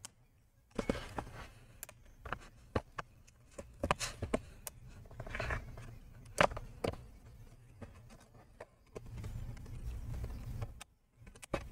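A plastic pry tool working along the plastic top trim strip of a Lenovo IdeaPad Gaming 3 laptop, with a run of sharp clicks and snaps as the cover's clips are worked loose, and scraping and rubbing between them.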